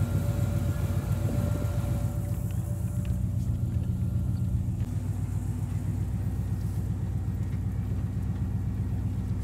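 Pickup truck engine running at low speed, heard from inside the cab while it tows a train of trailers: a steady low hum whose pitch rises slightly about five seconds in.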